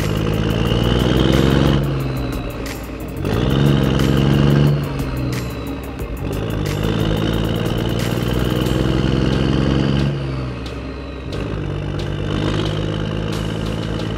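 RC model Caterpillar excavator driving on its tracks, with an engine sound that revs up and dies away four times, a steady high whine above it, and a run of sharp clicks.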